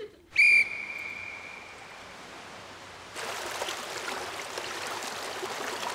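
A single high ringing tone starts sharply and fades away over about two seconds. From about three seconds in, swimming-pool water splashes and laps in a steady wash.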